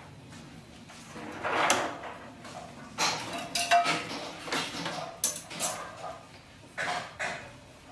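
Stainless steel pots and a metal ladle knocking and clinking as food is served out into the pots, a scattered run of clatters with one short metallic ring.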